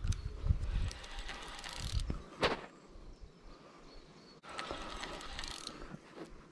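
Fishing reel ratcheting in two bursts of rapid clicking as a hooked carp is played, with a single sharp click between them.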